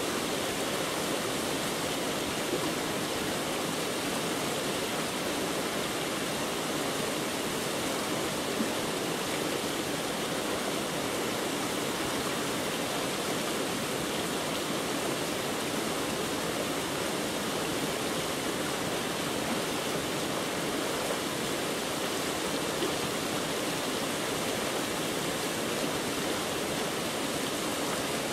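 Steady, unchanging rushing noise, even across the range, with no distinct events.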